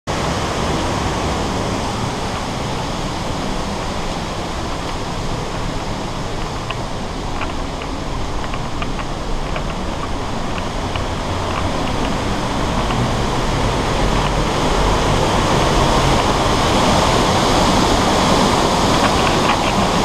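Rhine Falls' waterfall roaring: a steady rush of falling water that grows louder in the second half, with a few faint light ticks.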